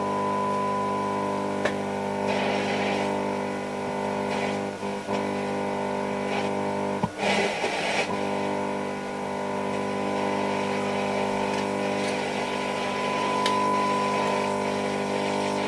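A Hacker Hunter RP38A transistor radio's loudspeaker sounding a steady test tone over a buzzy hum while its FM trimmer capacitor TC3 is turned during alignment. About seven seconds in the tone breaks briefly into rushing noise as the very touchy trimmer is moved.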